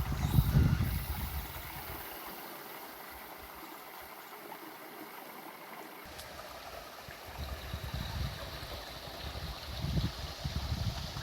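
Water flowing and trickling steadily, with wind buffeting the microphone in a low rumble during the first second and again in the second half.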